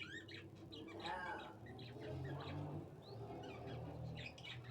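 Birds chirping repeatedly in the background, with a lower, fowl-like call about a second in, over a faint steady low hum.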